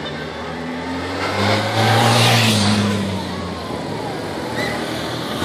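Police motorcycle engine running as it comes along the road, swelling to its loudest about two seconds in, then easing off.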